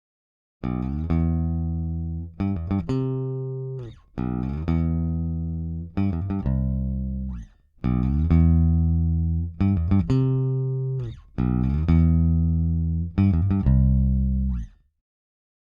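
Solo electric bass guitar playing a slow groove riff, long low notes that ring and die away one after another, run through a Pultec-style equalizer set for the low-end boost of the "Pultec trick".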